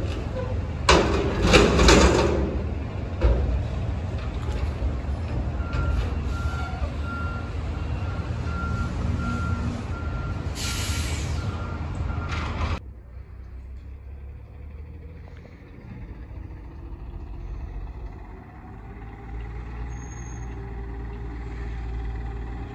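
Front-loader garbage truck emptying a dumpster overhead: loud clattering as the trash tips out about a second in, the diesel engine running, a reversing alarm beeping from about six seconds, and an air-brake hiss near eleven seconds. After a cut at about thirteen seconds, a quieter, steady low engine drone from a garbage truck approaching.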